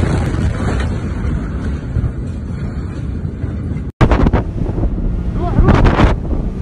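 Wind buffeting the microphone over a steady low rumble. After a sudden cut about four seconds in, a motorboat running at speed, with wind on the microphone and water rushing in its wake, and a voice crying out a little before the end.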